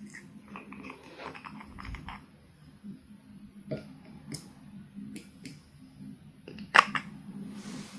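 Glass nail polish bottle being unscrewed and handled: a run of small crackly clicks as the cap turns, then scattered light ticks and one sharp click near the end.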